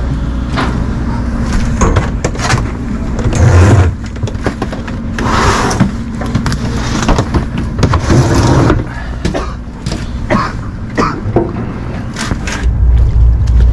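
Knocks, clatter and rustling as a black sea bass is handled and put into a cooler on a fishing boat's deck, over a steady low drone. Near the end, wind starts buffeting the microphone with a heavy low rumble.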